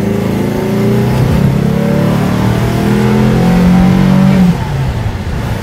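The 2332 cc air-cooled VW flat-four of a split-window bus, fitted with an SS143 exhaust, accelerating hard in second gear, heard from inside the cabin. Its note climbs steadily in pitch, then drops suddenly about four and a half seconds in.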